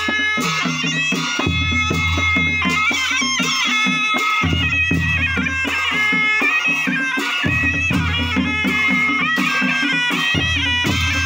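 Nepali panche baja folk band playing: a shehnai (sanai) carries a wavering, gliding melody over a quick, steady beat of dholak and small kettle drum, with a deep drum boom about every three seconds.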